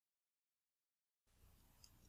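Dead silence for just over a second, then faint room tone comes in, with a light tick of metal tweezers on the lens's aperture parts near the end.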